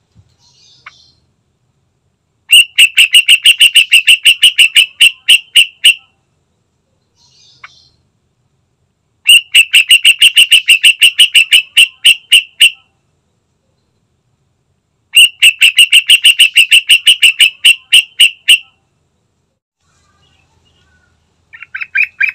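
Yellow-vented bulbul (trucukan) calling in three loud bouts of rapid chattering notes, each bout about six notes a second for some three seconds. Faint soft notes come between the bouts, and a short burst of calls comes at the very end.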